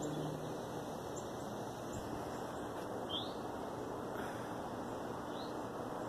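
Steady outdoor background rush, with two short rising bird chirps, one about three seconds in and another near five and a half seconds.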